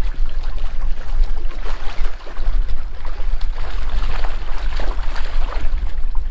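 Water splashing and churning as a snorkeler kicks with fins along the surface, under a heavy low wind rumble on the microphone.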